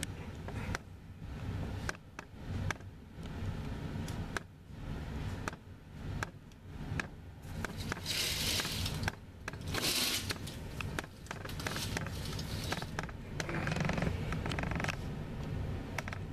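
Scattered clicks and scraping close to the microphone, with two short loud rustles about 8 and 10 seconds in, over a steady low rumble.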